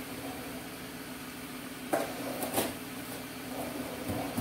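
A steady mechanical hum runs throughout. About two seconds in, a spoon clinks twice against a metal saucepan.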